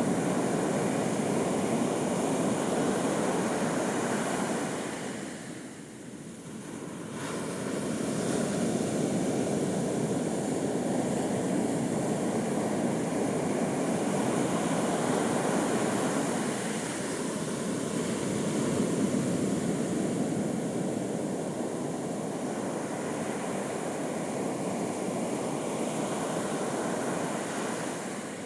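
Ocean surf: waves breaking and washing up a beach in a continuous rush that swells and eases, dipping briefly about six seconds in before building again.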